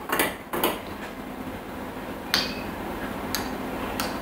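A metal spoon clinking a few times against a stainless steel jam funnel and glass jars as jam is scraped off. Five or so light, separate clinks, the clearest about halfway through with a short ring.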